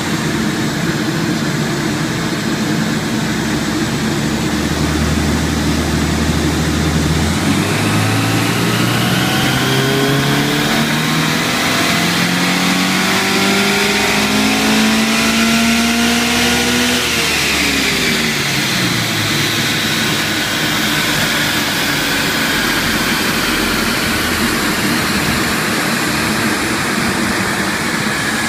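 Toyota 86's 2.0-litre flat-four boxer engine, breathing through a cat-back exhaust, on a full-throttle dyno power run. It runs at low steady revs, then climbs steadily in pitch for about ten seconds, drops quickly back down about two-thirds of the way through, and settles at low revs over a steady rushing noise.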